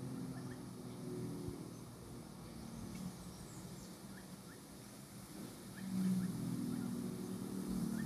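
Low, steady motor-like hum that swells louder about six seconds in, with a few faint high chirps over it.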